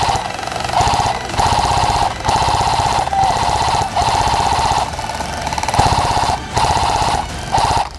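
Electric airsoft rifle (AEG) firing on full auto in a string of short bursts, about ten in all, each a rapid mechanical rattle with a motor whine, broken by brief pauses.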